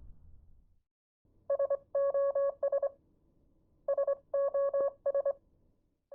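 Electronic telephone-style beeping in a repeating pattern: two short beeps, a longer beep, then two more short beeps. The group comes twice, and a third begins at the very end.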